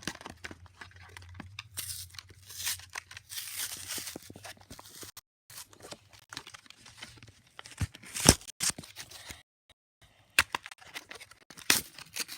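Product packaging being torn and crinkled open by hand, with irregular scraping and rustling and a few sharp clicks or knocks, the loudest about two-thirds of the way through.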